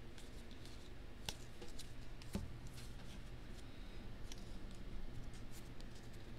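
Topps baseball cards being flipped through and handled by hand: paper cards sliding and ticking against each other in a run of small, irregular clicks, with one sharper knock about two and a half seconds in. A low steady hum sits underneath.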